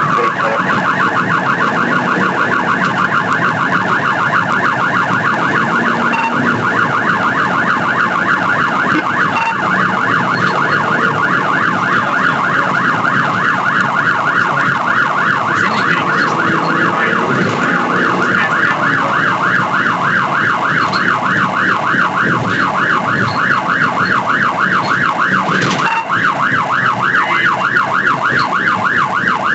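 Police car siren sounding continuously in a rapid rise-and-fall yelp, over the cruiser's engine and road noise during a vehicle pursuit.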